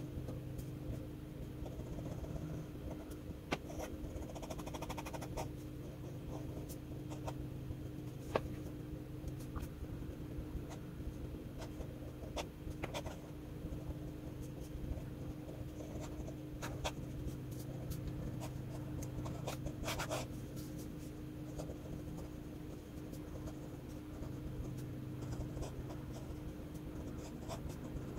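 FPR Himalaya v2 ultra-flex-nib fountain pen scratching across sketchbook paper in short, irregular strokes, with scattered light ticks as the nib meets the paper, over a steady low hum.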